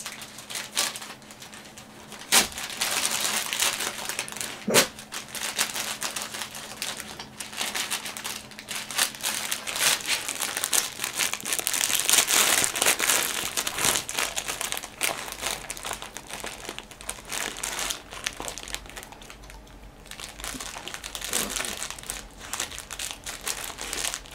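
German Shepherd puppy chewing and pawing at a plastic bag of bubliki, trying to free them: irregular crinkling and crackling of the plastic, with two sharp snaps about two and a half and five seconds in.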